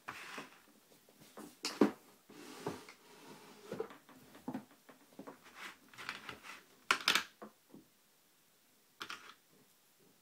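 Irregular small metal clicks, taps and short scrapes of a pin-tumbler lock cylinder and small tools being handled while it is being taken apart, with the sharpest clicks about two seconds in and again around seven seconds.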